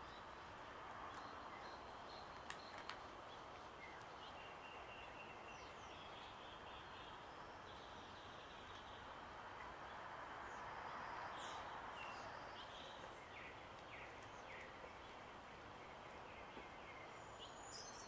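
Faint outdoor background hum with scattered short bird chirps and whistles throughout, and two soft clicks about two and a half seconds in.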